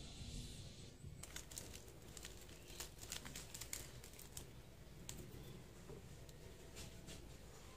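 Small sachet of ground black pepper crinkling as it is handled and torn open by hand. It makes a faint run of irregular crackles that starts about a second in and comes in bunches.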